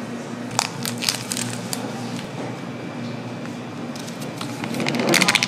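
Plastic instant-noodle seasoning sachet crinkling and crackling as it is handled and emptied over dry noodles in a cup, loudest near the end. Earlier, a few soft clicks and wet squishes come from chopsticks lifting sauced noodles, over a steady background hum.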